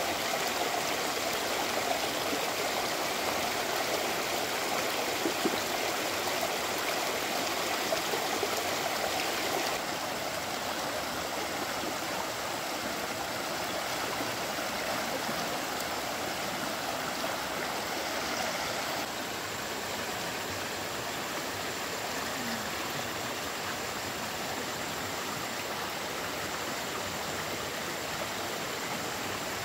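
Shallow stream water rushing steadily over a slatted bamboo fish-trap ramp. It gets a little quieter about ten seconds in.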